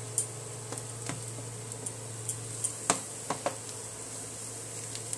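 Banana-batter fritters deep-frying in a pan of hot oil: a steady sizzle with scattered sharp pops, the loudest about three seconds in.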